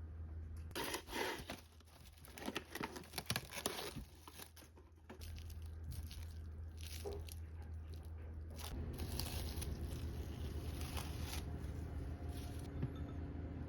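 Crinkling, tearing and crunching handling noises in bursts for a few seconds, then a steadier low running noise from about nine seconds in.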